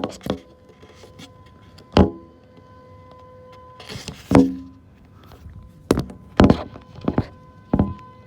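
About eight sharp knocks and thumps at irregular intervals, some with a brief hollow ring, over a faint steady tone.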